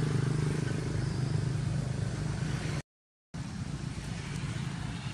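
A steady low engine hum, like a motor vehicle running nearby. It cuts to silence for about half a second near three seconds in, then resumes.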